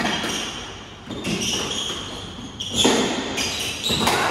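Squash rally: the rubber ball is struck by rackets and smacks off the court walls, a few sharp echoing hits spaced roughly every second and a half. Between the hits, shoes squeak on the wooden court floor.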